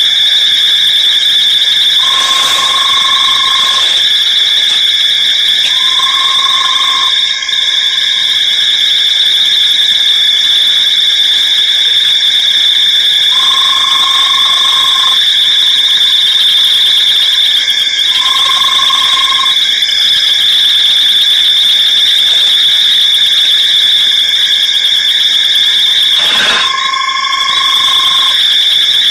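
A steady, high-pitched night chorus of insects trilling without a break. Over it, a short lower call about a second long comes every few seconds, often in pairs.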